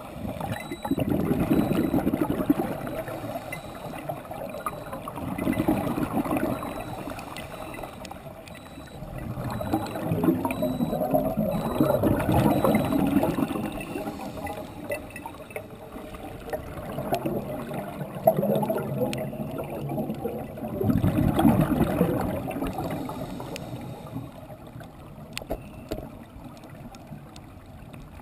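Scuba regulator exhaust underwater: a diver's exhaled air bubbling and gurgling in bursts that come back every few seconds with each breath.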